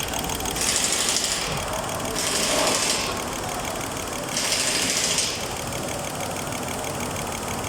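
A cleaned GDI fuel injector on an injector test bench, clicking rapidly and steadily, with three short hissing spray bursts. The injector is working properly after cleaning.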